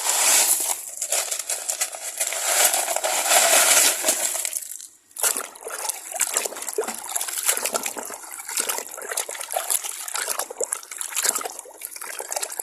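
Running water splashing and trickling over a toy tanker truck as it is washed clean. A strong, steady flow for about five seconds breaks off briefly, then resumes as broken splashing with small knocks.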